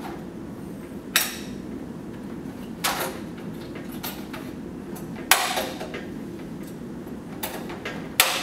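Four sharp clicks and knocks, about two seconds apart, of hard plastic and metal as the spring-joint connectors and rail housings of a VAHLE KBHF enclosed conductor rail are handled and fitted together, over a steady low hum.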